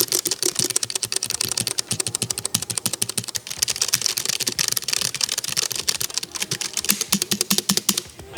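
Rapid typing on a low-profile mechanical keyboard with brown (tactile, non-clicky) switches: a fast, dense run of key clacks, with a brief pause near the end.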